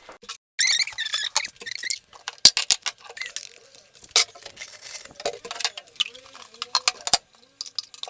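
Kitchen utensils and dishes clicking and clinking as the kitchen is tidied, with high, wavering squeaks about a second in and again around four seconds.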